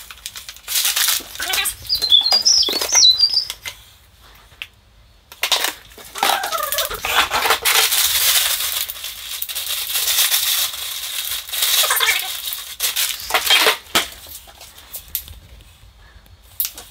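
Plastic food packets rustling and crinkling in bursts, with a few knocks from handling.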